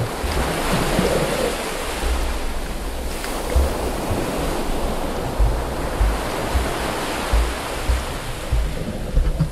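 Muffled water noise heard through a submerged camera: a steady rushing wash with irregular low thumps.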